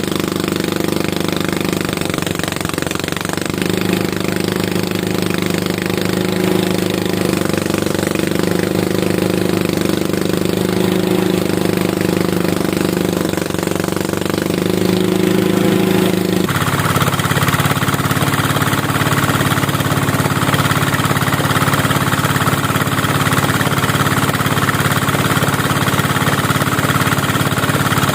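Engine of a rice harvesting machine running steadily. About sixteen seconds in its sound changes abruptly, losing the strong low hum and becoming brighter and slightly louder.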